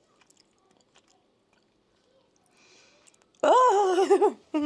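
Soft mouth clicks from chewing a gummy, then about three and a half seconds in a woman's loud, drawn-out, wavering groan, a dramatic reaction of disgust at the supplement's taste, followed by a short shaky vocal sound.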